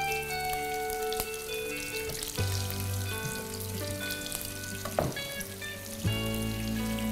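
Shrimp sizzling in olive oil in a frying pan, a steady fine crackle, under soft background music with long held chords. A brief sharp sound about five seconds in.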